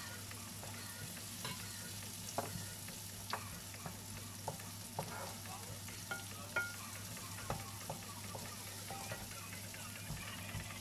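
Minced beef and carrots sizzling in a frying pan with a steady hiss, stirred with a spatula that clacks and scrapes against the pan at irregular moments, twice sharply.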